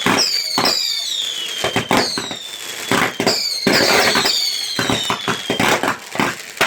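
Fireworks going off in rapid succession: sharp bangs several times a second, mixed with high whistles that fall in pitch and a dense burst of crackling about four seconds in.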